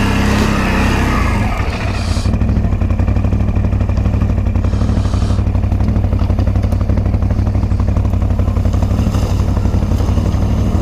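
Can-Am Outlander ATV engine running steadily along the trail, a low rumble pulsing rapidly and evenly. About two seconds in, a brighter hiss over it drops away, leaving the rumble alone.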